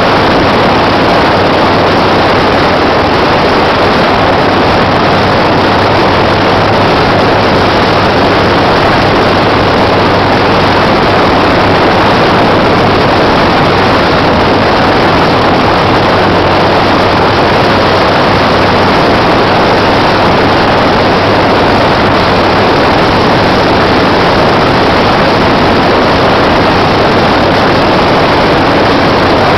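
Harley-Davidson Shovelhead V-twin engine running steadily at cruising speed, mixed with loud, even wind rush over the microphone from riding.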